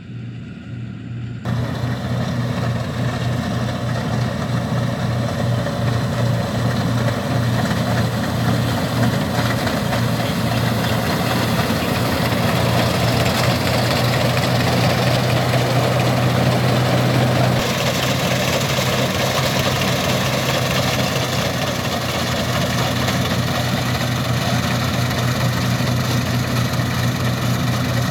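Combine harvester running steadily in a wheat field: a low, even engine hum under the rushing noise of the machine. The sound thickens about a second and a half in and then holds steady.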